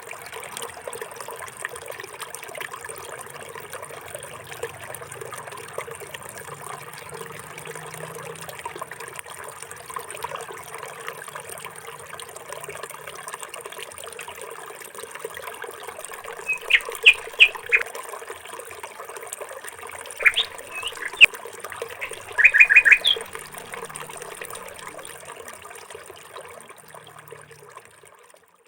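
Water trickling steadily, with a small bird chirping in three quick runs about two-thirds of the way through.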